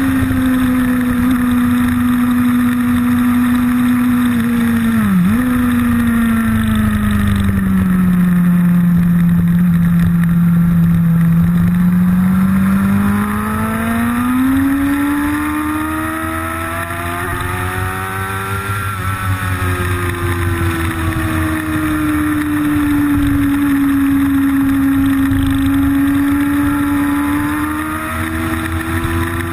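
Vehicle engine heard from onboard at racing speed, a steady high drone whose pitch follows the speed: a quick dip and recovery about five seconds in, a slow fall to its lowest between about eight and twelve seconds, a climb, and another fall and rise after about nineteen seconds.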